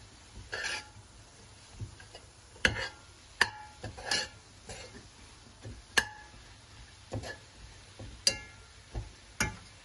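Metal spoon stirring chopped spinach and okra in a pot, clinking and scraping against the pot's side at irregular intervals, about a dozen sharp knocks.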